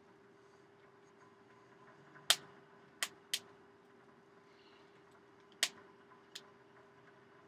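Damp kindling burning in a forge, snapping and popping five times at uneven intervals, the loudest about two seconds in, over a steady low hum.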